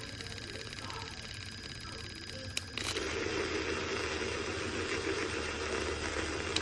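Shilily USB-rechargeable handheld milk frother running, its small motor spinning a wire spiral whisk in milk in a glass jar. A click comes about two and a half seconds in, and after it the sound gets clearly louder and rougher.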